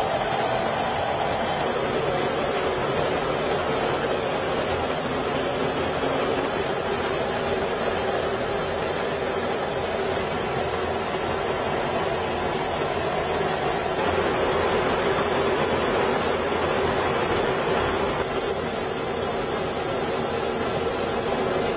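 Steady jet noise of aircraft in flight: a constant rushing of engines and air with no breaks, shifting slightly in tone twice in the second half.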